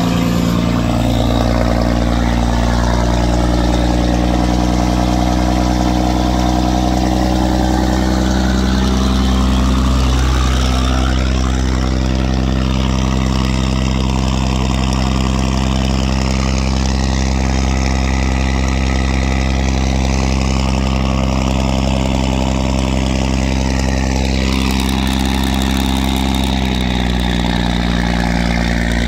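One of a barge's engines running steadily, picking up speed slightly about a second in and easing back near the end; only one of its three engines has been started.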